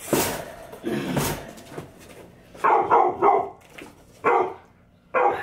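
Pet dogs barking in the house: a quick run of about three barks near the middle, then single barks, after a brief noisy rustle at the start.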